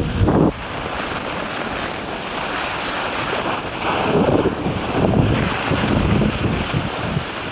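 Wind buffeting the microphone of a camera moving down a ski slope: a rough, gusty rush, loud for the first half-second, lower for a few seconds, then rising again about three and a half seconds in.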